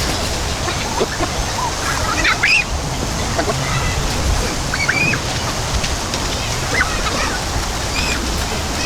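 River water rushing steadily, with a few short rising bird calls over it, about two and a half, five and seven seconds in.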